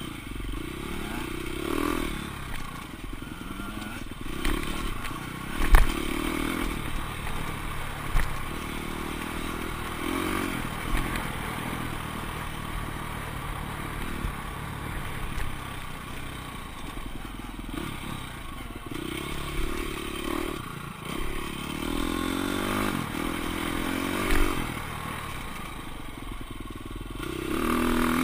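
Off-road dirt bike engine, heard from the bike itself, revving up and easing off again and again as it is ridden along a rough trail, with clatter and knocks from the bike over the ground. A sharp knock about six seconds in is the loudest sound, with smaller ones about eight, eleven and twenty-four seconds in.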